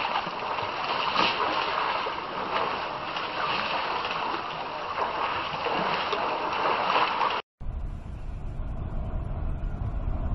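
Water splashing and sloshing as elephants wade and bathe in a waterhole. About seven seconds in it cuts off abruptly and a low, steady rumble takes over.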